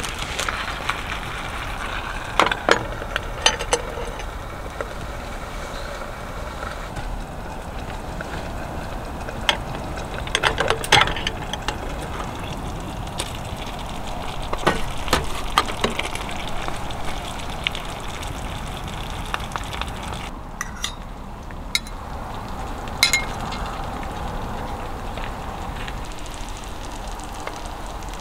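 Food sizzling in a pan, with a metal utensil clinking against it now and then, in scattered bursts.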